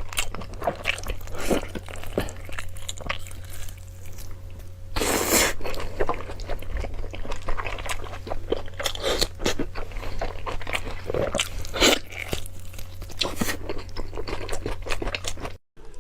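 Close-miked eating: irregular crunching, biting and chewing of food, with a steady low hum underneath. The sound breaks off to silence for a moment near the end.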